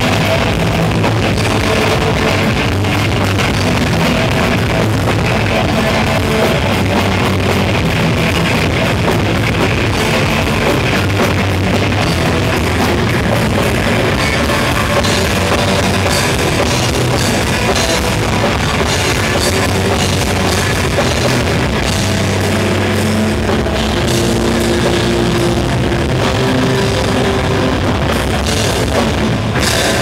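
Live rock band playing loud and steady, with electric guitars and a drum kit, heard from the audience.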